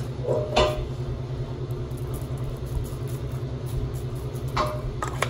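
A steady low hum with a fast, even flutter, like a small motor or fan running, with a brief clink about half a second in and another near the end.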